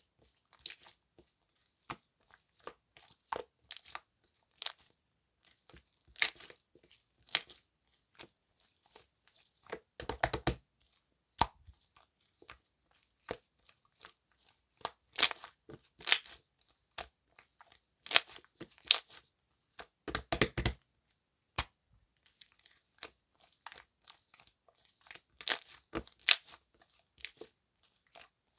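Slime-like gel with foam worked into it being squished, giving irregular crackling pops and clicks, with a few louder wet pops.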